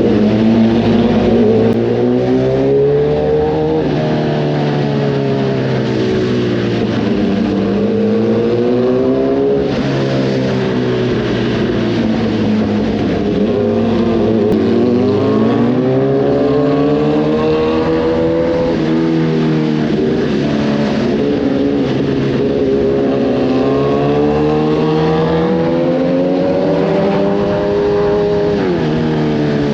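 Kawasaki ZX-10R inline-four engine through an Arrow racing exhaust, its note rising and falling again and again as the bike accelerates and eases off, with sudden drops in pitch at about 10, 14, 19 and 29 seconds.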